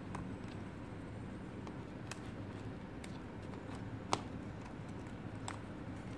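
Small clicks and taps from hands handling a car stereo head unit's plastic frame, wires and ribbon cable, a handful scattered through, the sharpest about four seconds in, over a steady low background hum.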